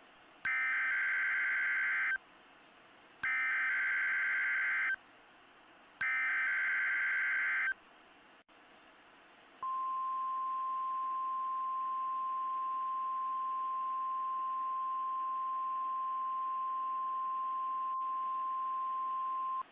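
NOAA Weather Radio alert tones: three short bursts of SAME digital header data tones, each under two seconds, then the steady 1050 Hz warning alarm tone held for about ten seconds, the signal that switches on weather radio receivers before a test message.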